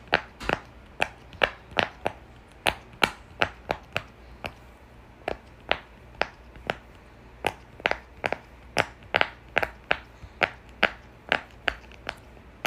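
Silicone pop-it fidget toy having its bubbles pressed one after another: a quick, uneven run of sharp pops, about three a second.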